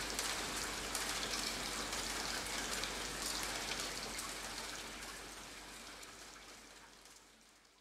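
Steady rain falling, a soft even hiss of many small drops, fading out gradually over the second half until it is almost gone.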